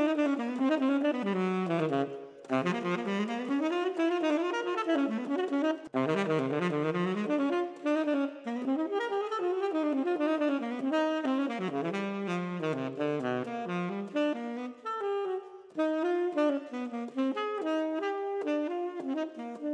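Unaccompanied tenor saxophone improvising a fast, winding jazz line, with short breaks about two and six seconds in.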